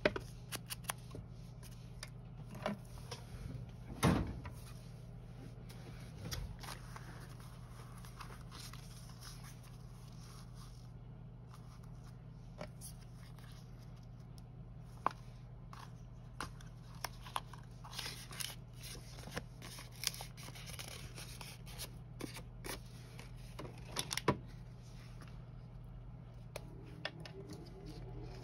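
Quiet paper-craft handling: scattered light taps and clicks of paper and small tools on a worktable, the loudest about four seconds in and again near the end, over a steady low hum.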